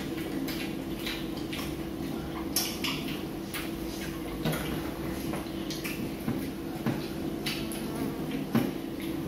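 Light, scattered clinks and taps of hands and spoons on ceramic plates and bowls as people eat, a few a little louder than the rest, over a steady low hum.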